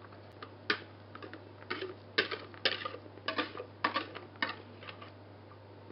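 A spatula knocking against the rim of a glass mixing bowl, about ten sharp taps over some four seconds, shaking meringue off into the batter.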